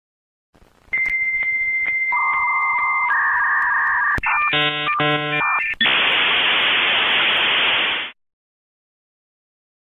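Dial-up modem handshake over a phone line: a high steady answer tone, then two-tone beeping and a pair of buzzy bongs, then a loud static hiss that cuts off suddenly about eight seconds in.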